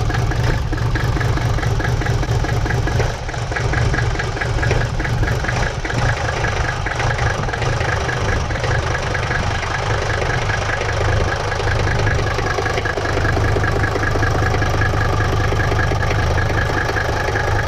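Mercedes-Benz W126 diesel engine idling just after a cold start, with steady diesel clatter. It shakes and misfires at first, then smooths out in the later part. The owner goes on to test the glow-plug circuit as the cause of the rough start-up.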